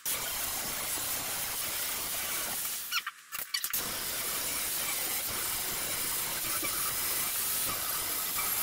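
Angle grinder grinding down welds on an aluminum tube frame, a steady high hissing squeal. It breaks off briefly about three seconds in, then picks up again.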